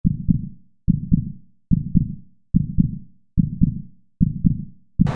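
Heartbeat sound effect: a deep double thump, like a lub-dub, repeating about every 0.8 s, six times. Crowd cheering and music cut in just before the end.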